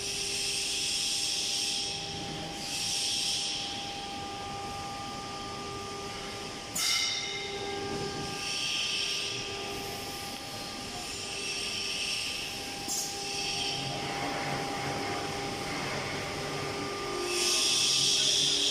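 CNC router with automatic tool changer running its automatic tool-setting cycle: the axis drives give a steady whine, with repeated bursts of hiss, a sharp clack about 7 seconds in and another near 13 seconds, and a louder hiss near the end.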